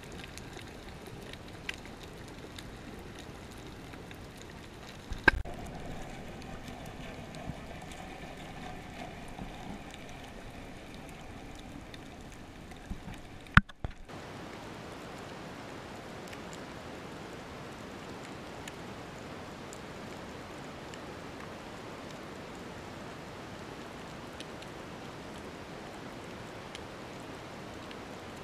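Underwater ambience picked up through the camera's waterproof housing: a steady hiss and crackle of water. Two sharp knocks stand out, about five seconds in and about thirteen seconds in.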